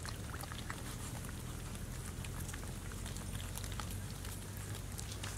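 Several puppies eating together, lapping and chewing wet food with many quick, irregular smacking clicks over a low steady rumble.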